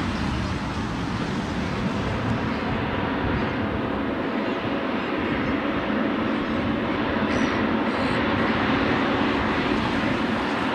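Jet airliner engines running, a steady engine noise that eases slightly in the first second and then holds level.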